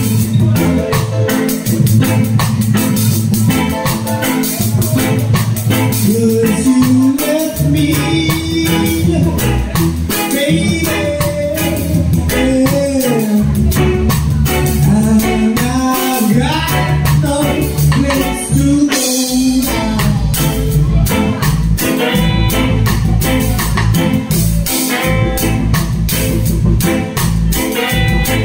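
Live band playing: electric bass guitar, keyboard and a drum kit with cymbals, keeping a steady beat under a wandering melody line.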